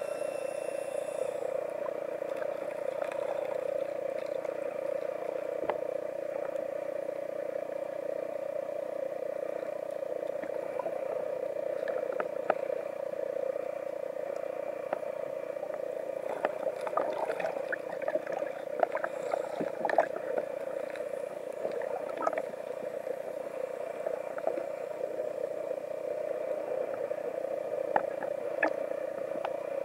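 Underwater sound picked up by a camera submerged in the surf: a steady muffled drone, with scattered sharp clicks and crackles that come thickest about halfway through.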